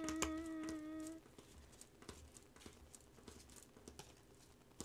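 A woman humming a single held note with closed lips, slightly wavering, which stops about a second in. After it there are only a few faint clicks.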